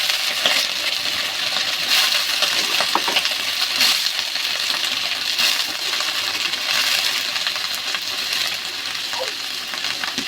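Sliced ivy gourd (kundri) frying in hot oil with browned onions in a kadai: a loud sizzle that starts suddenly as the vegetable goes in, then carries on steadily while it is stirred, with small metallic clinks and scrapes of the spatula against the pan.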